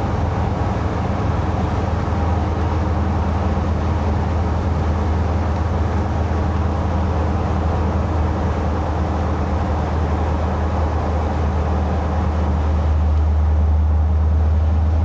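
V8-powered Jeep Wrangler JK driving with open tube doors: a steady low engine and exhaust drone under road and wind noise, which swells slightly near the end.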